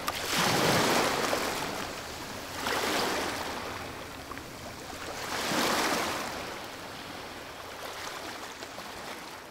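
Ocean waves washing onto a shore, three surges that each swell and fade away, the first the loudest about half a second in.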